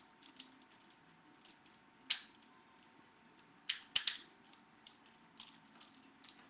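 Hard plastic parts of a 1993 Bandai Dragonzord toy clicking and snapping as they are folded down and handled: light scattered ticks, a sharp click about two seconds in, and two or three sharp clicks in quick succession about four seconds in.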